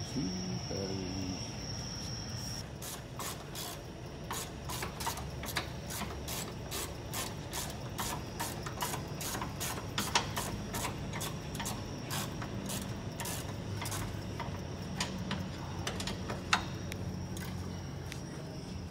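Ratchet wrench clicking in a long run of short strokes, about two or three clicks a second, as the truck's battery cable terminals are fastened.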